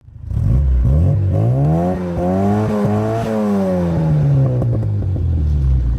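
Car engine revving: the pitch climbs over the first three seconds or so, then slowly falls back.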